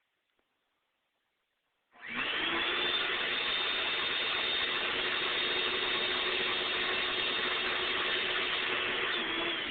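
Electric vacuum cleaner switched on about two seconds in, its motor quickly reaching a steady whine over rushing air. Near the end it is switched off and the whine falls in pitch as the motor winds down.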